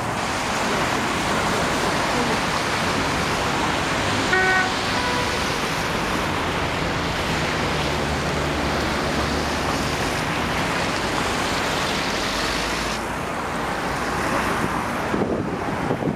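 Steady city street traffic noise from a slow-moving jam of cars, with a car horn honking briefly about four seconds in.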